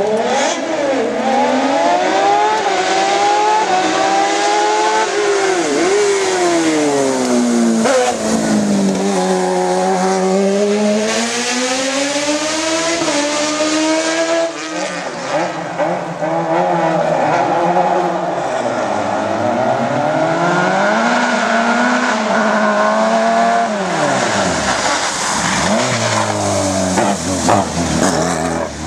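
Racing car engines at hard throttle, the note rising and falling over and over through gear changes and lifts.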